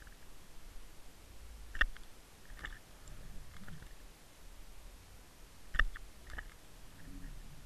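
Underwater sound picked up by a Water Wolf camera on a fishing line: a low muffled water rumble, with two sharp clicks about four seconds apart, each followed by a few fainter clicks.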